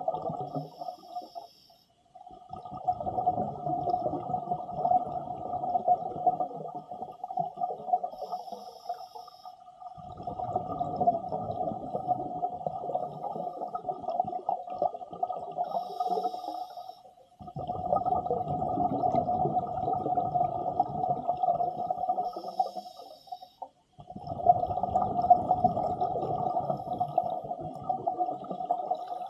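Scuba regulator breathing heard underwater: a short hiss of inhalation through the demand valve, then several seconds of bubbling exhalation. The cycle repeats about four times.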